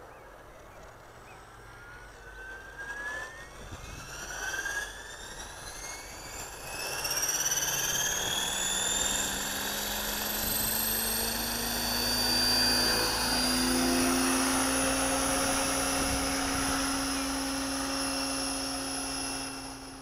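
Align T-Rex 600 flybarless RC helicopter spooling up: a rising whine climbs for several seconds as the rotor comes up to speed, then holds steady at flying speed with a lower steady hum beneath it. The sound drops off shortly before the end as the helicopter climbs away.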